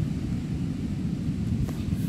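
Wind buffeting the microphone as a steady low rumble, with one faint click near the end.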